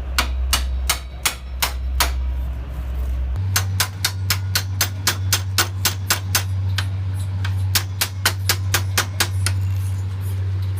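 Hammer tapping on metal in a series of sharp knocks, about six in quick succession, a short pause, then a steady run of two or three a second.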